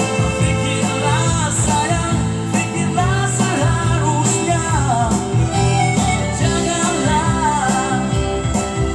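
A song: a solo singing voice over band accompaniment with guitar, the voice coming in about a second in.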